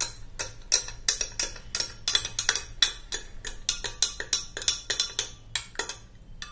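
A spoon stirring warm water and honey syrup in a glass, clinking against the sides about three times a second. The clinking stops near the end.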